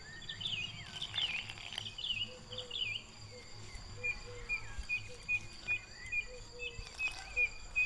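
Birds calling: quick up-and-down chirps for the first few seconds, then a short call repeated about two to three times a second. A steady high insect trill runs underneath. Soft patting and rustling comes from hands mixing flour with water in a steel bowl.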